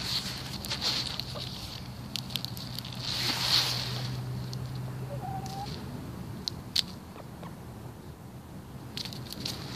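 Hens scratching and pecking among dry leaves and straw: irregular rustling and sharp beak clicks, with one short soft call about five seconds in.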